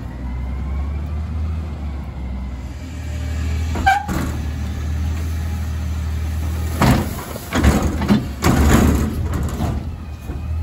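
Peterbilt 520 CNG rear-load garbage truck idling with a steady low hum. A sharp knock comes about four seconds in. Several loud bursts of noise follow from about seven to ten seconds while a worker runs the rear loader.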